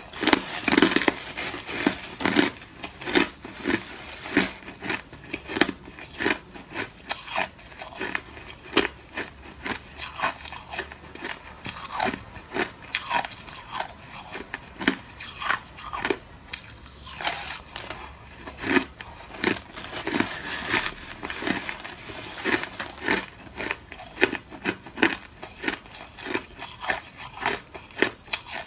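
Someone biting and chewing hard crushed ice close to the microphone: dense, irregular crunches, several a second.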